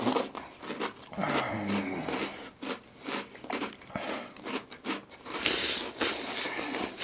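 Close-miked eating of cereal in milk: repeated crisp crunching and chewing, loudest in a longer noisy burst about five and a half seconds in.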